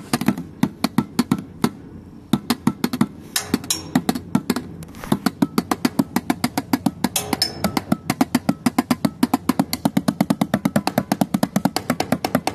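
Drumming on paint pots: a fast run of sharp hits, with a short gap about two seconds in, settling into a steady stream of about nine hits a second.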